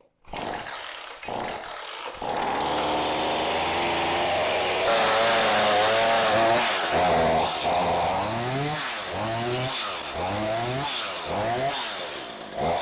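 Ryobi 18-inch two-stroke gas chainsaw engine running just after being pull-started. It revs up and holds around five seconds in, then is revved in quick repeated throttle blips, about one and a half a second, from about eight seconds in.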